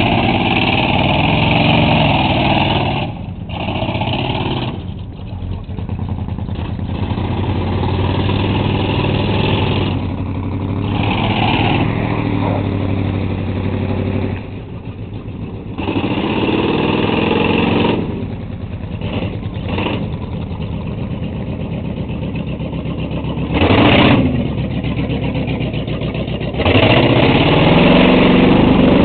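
Ford F-350 truck's engine revving up and down again and again as the truck churns through mud, under a steady hiss of noise. There is a brief loud burst about two-thirds of the way through.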